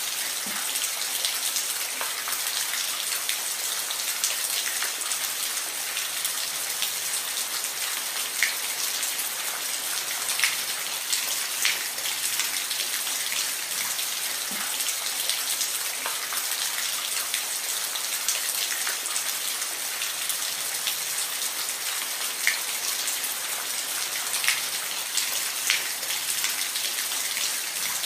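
Steady rain falling, a constant hiss with scattered individual drops ticking sharply on a surface.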